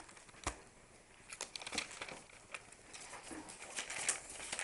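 Papers in an open three-ring binder being handled and rustling, with a single thump about half a second in and a run of small clicks and crinkles after it.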